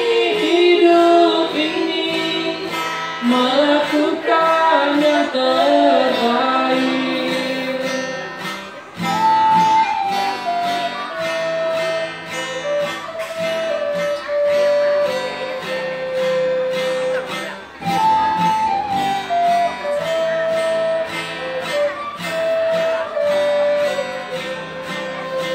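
Live acoustic pop: a steadily strummed acoustic guitar, with a male voice singing the end of a line for the first several seconds. From about nine seconds in, a small end-blown flute plays a simple descending melody over the guitar, the same phrase twice.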